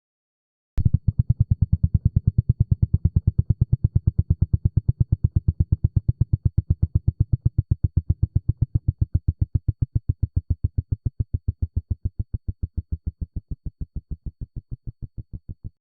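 Synthesizer sound design: a low synth tone pulsing quickly and evenly, about six throbs a second. It starts abruptly about a second in, then slowly grows duller and softer before cutting off near the end.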